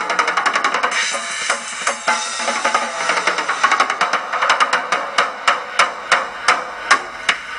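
Drum kit played in a rock drum solo: fast rolls and fills with cymbal crashes, then separate single strokes about three a second in the last couple of seconds.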